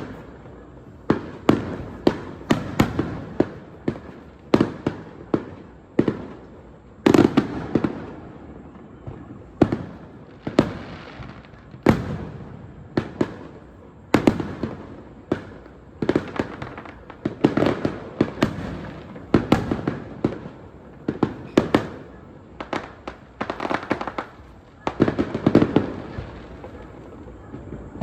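Aerial fireworks shells bursting in rapid, irregular succession, sometimes several bangs a second. Each sharp bang trails off in a rumbling echo.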